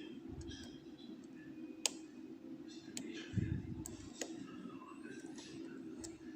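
Lock picking on an ASSA Oval cylinder lock: small scratchy metal sounds of a pick working the pins, with three sharp clicks, the loudest about two seconds in, and a dull low thump about a second and a half later.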